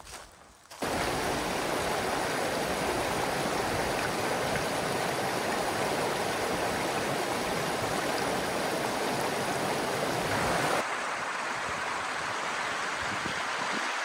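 Running water rushing steadily, starting abruptly about a second in. About three seconds before the end it changes to a lighter rush with less low rumble.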